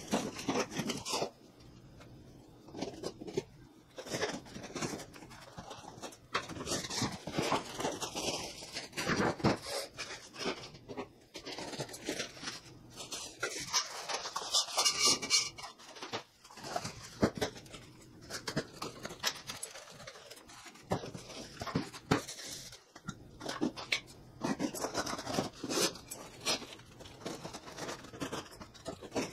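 Irregular rustling, crinkling and scraping of cardboard boxes and plastic wrap being handled as the parts of a pedestal shop fan are unpacked.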